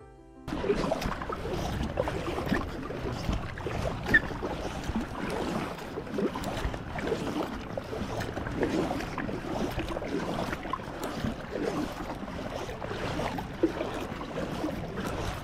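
Paddling an inflatable packraft: double-bladed paddle strokes splashing and dripping, with water lapping against the hull, starting about half a second in.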